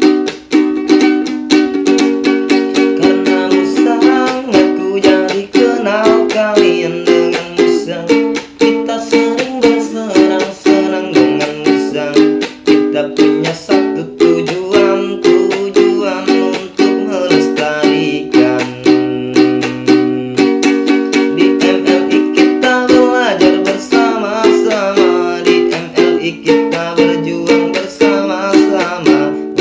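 Ukulele strummed in a steady rhythm, with a man singing over it from a few seconds in.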